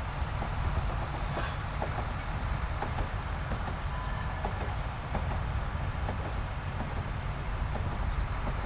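Narrow-gauge steam train running past, a steady rumble with scattered clicks of wheels over the rail joints.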